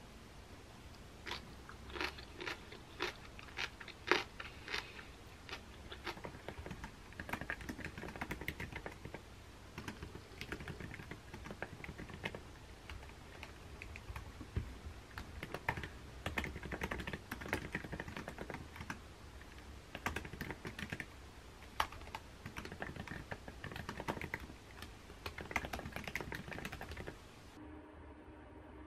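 Close-up eating sounds, chewing with chopsticks clicking against the dishes, then typing on a MacBook Pro laptop keyboard, with key clicks coming in quick runs. Near the end the clicking stops and only a faint steady hum is left.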